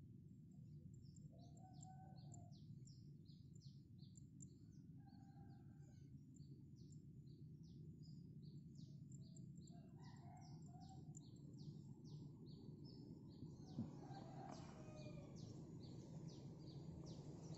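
Faint rural ambience: birds calling, with a rapid run of short high chirps and a few lower calls over a steady low rumble.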